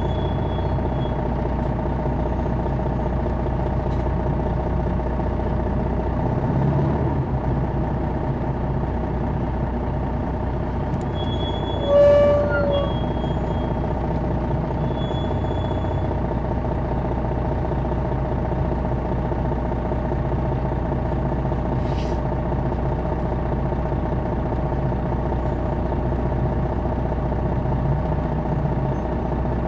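2001 MCI D4000 coach's Detroit Diesel Series 60 engine running steadily, heard from inside the bus. About twelve seconds in, a brief pitched tone sounds, the loudest moment.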